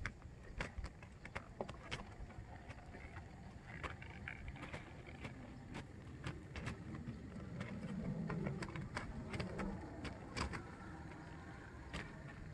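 Faint, uneven hoofbeats of a gaited horse moving over dry, uneven dirt, over a low rumble.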